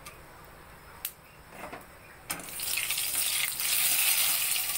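Whole spices frying in hot oil in a kadhai: fairly quiet at first, then a loud sizzling and crackling sets in suddenly about halfway through as cloves go into the oil.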